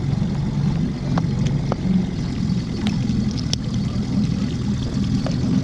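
An engine idling steadily with a low even rumble, with a few faint clicks over it.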